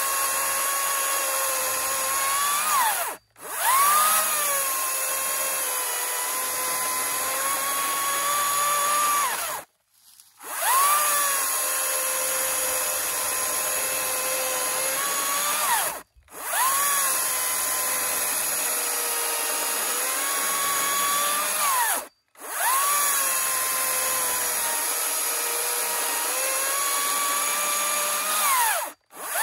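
Makita XGT 40V 18-inch cordless chainsaw cutting through a log: a steady high motor-and-chain whine that sags slightly in pitch under load and climbs as the bar clears the wood. Several cuts, separated by brief breaks.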